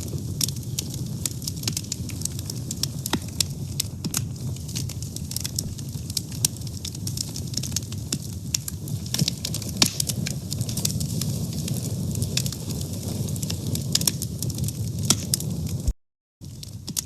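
Burning fire crackling, with many sharp pops over a steady low rumble. About 16 seconds in, the sound cuts out completely for half a second, then returns a little quieter.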